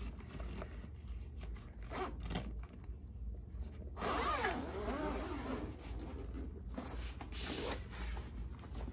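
Zippers on a soft-shell saxophone case being pulled open in several strokes, with the longest, wavering pull about four seconds in, lasting a couple of seconds.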